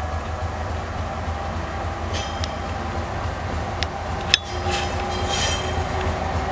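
TGM6A diesel-hydraulic shunting locomotive approaching, its diesel engine running with a steady low rumble that grows slightly louder towards the end. A sharp click stands out a little past four seconds in.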